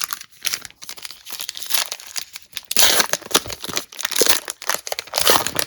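A trading-card pack wrapper being torn open and crinkled by hand, a busy crackling that gets louder about halfway through.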